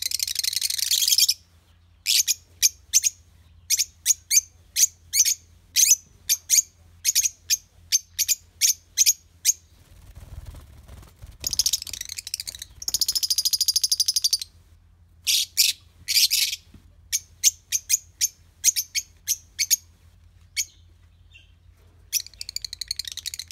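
Lovebirds calling: a run of sharp, high-pitched chirps about two a second, broken by three bursts of rapid, dense chattering near the start, in the middle and at the end.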